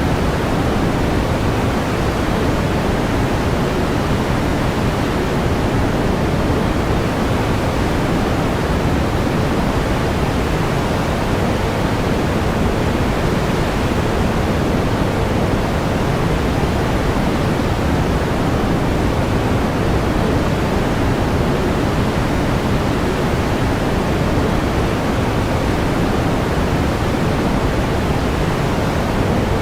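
Steady pink noise: an even, unchanging hiss, fuller in the low end than white noise.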